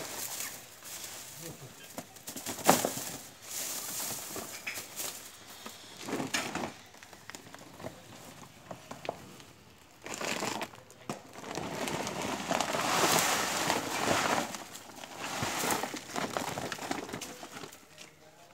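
Dry rice straw rustling and crackling as hands press and spread cow-dung manure over it, in irregular bursts with a sharp crackle a little under three seconds in.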